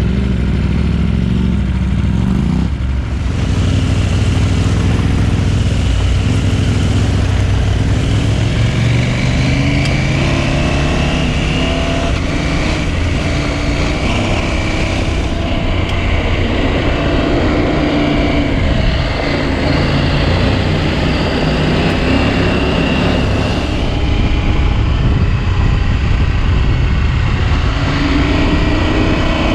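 Adventure motorcycle engine running on the road, its pitch rising and falling with throttle and gear changes, under steady wind and road noise.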